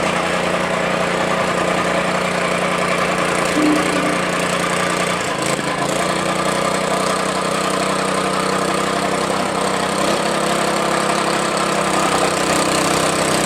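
Small petrol engine of a tamping rammer (jumping-jack compactor) running steadily, with a brief wobble in pitch about five seconds in.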